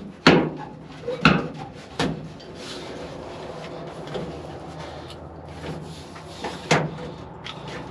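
Metal knocks and clunks as a broken square-drive handle is forced against the seized inside door latch of an old steel truck cab: a few sharp knocks in the first two seconds and another near the end. The latch is rusted stuck and will not turn.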